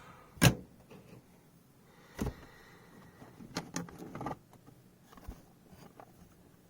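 Hard plastic graded-card slabs clicking and tapping as they are handled and set down: a sharp click about half a second in, another near two seconds, then a cluster of lighter taps around four seconds.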